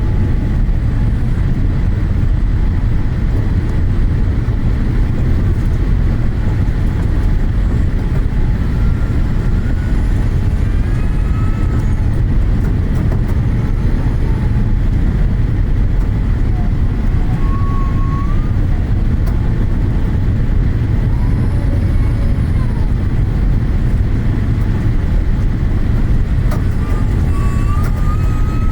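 Strong gusty wind buffeting the microphone: a steady, heavy low rumble that neither builds nor fades.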